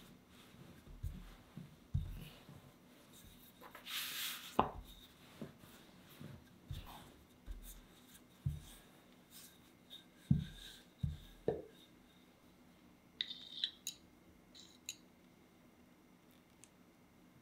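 Wooden rolling pin rolling out a sheet of pie dough on a countertop: soft, irregular knocks and thumps as the pin is pressed, rolled and set down, with a short swish about four seconds in. A few light clicks follow later on.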